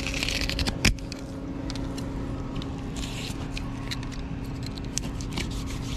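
Fillet knife slicing along a barracuda's scaly back, with scraping strokes at the start and again about three seconds in, and one sharp click just under a second in, over a steady low hum.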